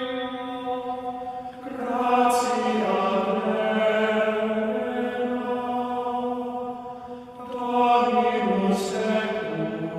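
A slow devotional chant sung in long held notes. It comes in phrases that swell about two seconds in and again near the end.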